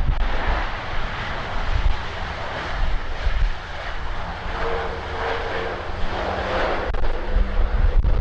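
Jet airliner engines roaring steadily, with gusty wind buffeting the microphone.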